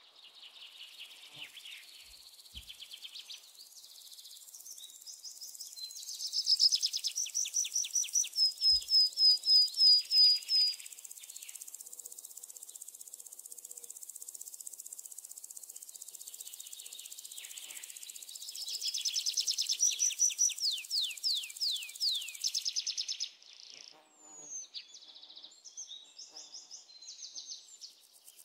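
Birds singing outdoors, with loud runs of quick, repeated downward-slurred chirps, over a steady high insect buzz. The buzz stops about 23 seconds in, leaving a few scattered short chirps.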